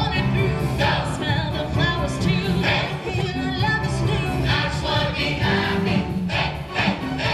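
Music with singing voices over sustained bass notes.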